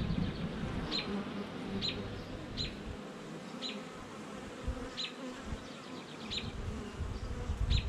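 Honey bees buzzing steadily around an open hive. A short high chirp repeats about once a second in the background.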